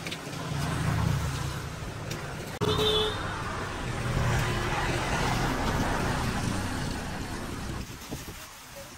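Road traffic passing: a low vehicle rumble that swells, drops off abruptly about two and a half seconds in, rises again, and fades near the end.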